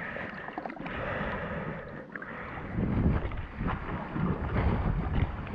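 Wind buffeting the microphone with water washing against shoreline rocks. The wind gusts louder from about three seconds in.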